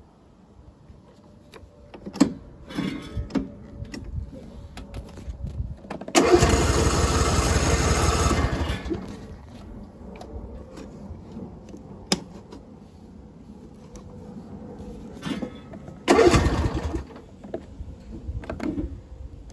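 Electric starter cranking the 24 hp Briggs & Stratton V-twin of a John Deere S170 lawn tractor on its first start, rhythmic for about two and a half seconds without the engine catching, then a second, shorter crank near the end. A few sharp clicks come before it.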